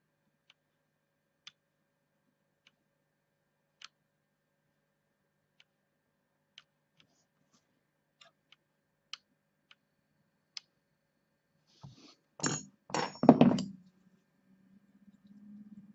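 Faint, sparse clicks about once a second from a vape mod firing a freshly built pair of 0.56-ohm coils on a rebuildable tank atomizer deck, dry-firing them to check that they glow evenly. About twelve seconds in, a few louder knocks and rubs of the mod being handled, then a faint low hum.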